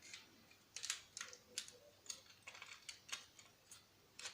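Faint, irregular light clicks and taps of small plastic and metal parts being handled by hand, about a dozen in all, with a quick pair just before the end.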